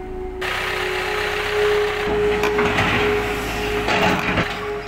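Caterpillar 320 GC hydraulic excavator running, with a steady high tone, clattering, and a few sharp knocks from the working arm and bucket about four seconds in.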